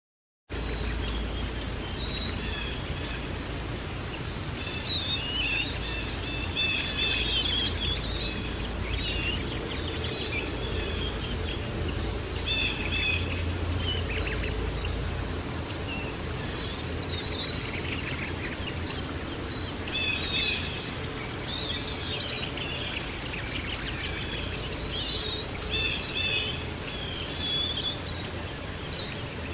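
Several small songbirds chirping and trilling over a steady background hiss, starting abruptly about half a second in; a low rumble underneath fades out about halfway.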